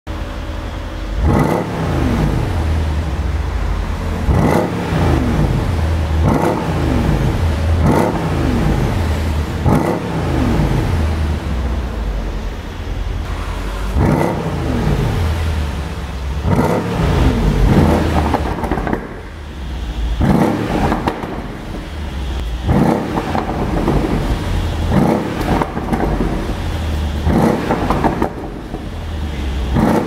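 Mercedes-Benz CLS63 AMG V8 revved again and again while standing, about a dozen short blips, with pops and crackles from the exhaust as the revs fall, the sign of an ECU tune for overrun pops.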